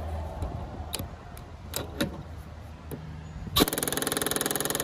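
Cordless impact wrench hammering a mower blade bolt tight on the deck spindle, a loud rapid rattle for just over a second near the end that cuts off suddenly. Before it come a few sharp clicks and knocks of tools and parts being handled.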